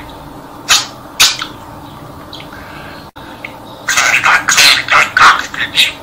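Budgerigar talking in its high, scratchy mimicking voice, repeating a Turkish tongue twister ("karga karga gak dedi…"): two short syllables about a second in, then a quick run of syllables from about four seconds in.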